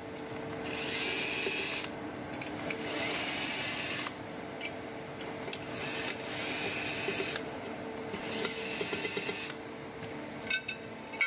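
Cordless drill-driver running in four short spurts, driving in the screws of an aluminium enclosure lid, over a steady hum. A few light clicks near the end.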